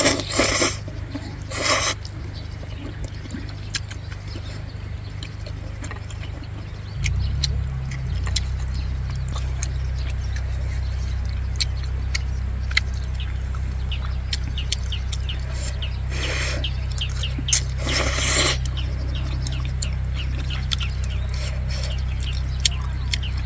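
Wind rumbling on the microphone, growing stronger about seven seconds in, with scattered light taps of raindrops and a few short rustling bursts.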